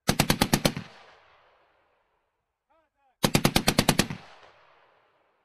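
M2 .50-caliber heavy machine gun firing two short automatic bursts of about seven rounds each, roughly ten shots a second, the second burst about three seconds after the first. Each burst trails off in a ringing echo.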